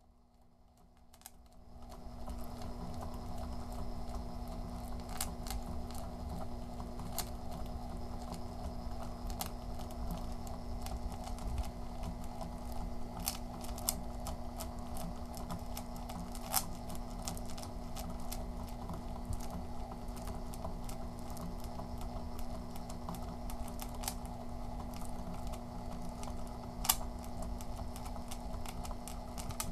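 Metal ball chain falling from a feed tube and heaping onto itself: a dense, continuous patter of small clicks with occasional sharper clicks, over a steady low hum. It fades in over the first two seconds.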